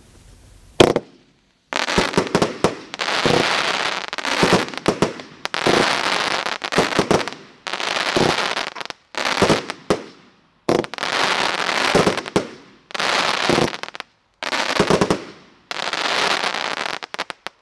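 A 30-shot consumer firework cake firing. There is a sharp report about a second in, then about ten volleys of dense crackling from gold and silver crackle bursts, each lasting a second or so, with short gaps between them.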